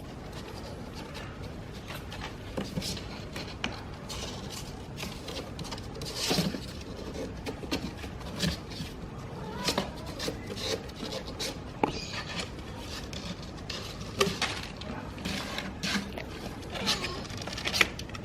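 A young kitten's claws scratching and scrabbling at a cardboard box, in irregular short scrapes and taps.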